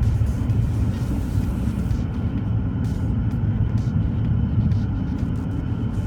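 BMW X6 xDrive40d's twin-turbo straight-six diesel driving, a steady low drone mixed with road rumble.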